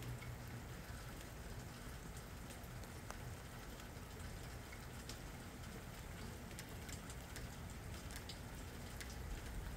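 Light rain pattering: many small scattered drop ticks over a steady low background rumble.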